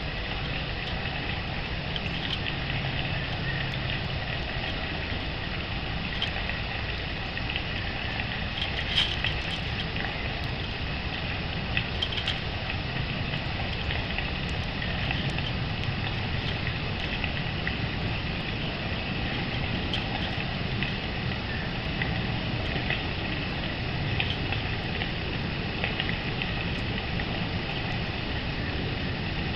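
Steady outdoor background with a low rumble, over which come many faint, short, high chirps and ticks from small birds at a feeder.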